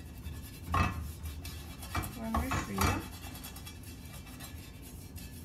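Non-stick frying pan clinking and rattling against a gas-stove grate as a silicone brush spreads oil across it: a knock about a second in, then a short cluster of clatters around two to three seconds in.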